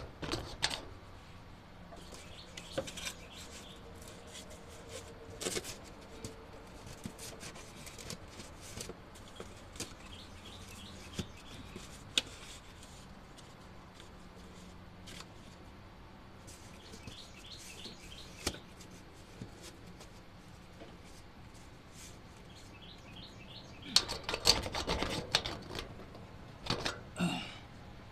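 Scattered clicks, taps and rubbing of hands and tools working among wires and hoses in a car's engine bay, growing into a busier clatter about 24 seconds in. Short chirps from birds repeat in the background.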